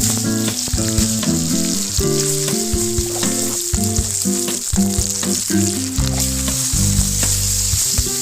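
Food frying in hot oil in a pan: a steady sizzle that starts suddenly at the outset, with background music playing over it.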